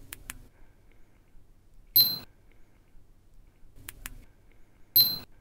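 Faint button clicks, in pairs, as the buttons of the YI 360 VR camera's Bluetooth remote are pressed during pairing. Twice, about 2 and 5 seconds in, a louder, short electronic sound with a high ringing tone comes from the camera's speaker.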